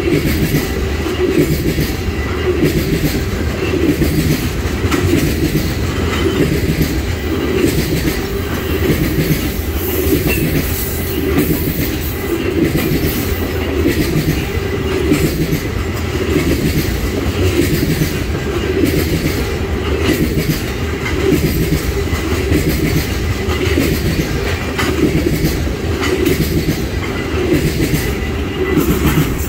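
Freight train tank cars rolling past close by: steel wheels clacking over rail joints in a steady rhythm over a heavy rumble.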